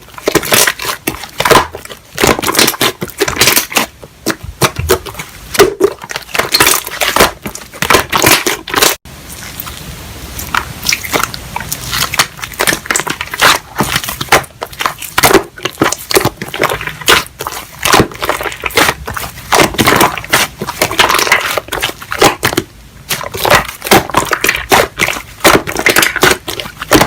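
Slime being squeezed and pressed by hand, giving a dense run of crackling, popping clicks. The texture changes abruptly about nine seconds in.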